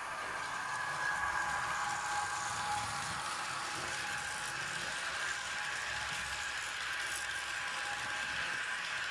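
Märklin H0 model train running past on the layout: a steady whir from the locomotive's motor over the sound of the coaches' wheels running along the track.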